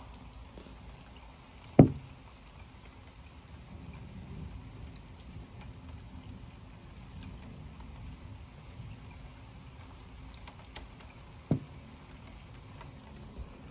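Steady rain during a thunderstorm, with scattered drops ticking on window glass. Two sharp knocks, the loudest sounds, come about two seconds in and again about ten seconds later.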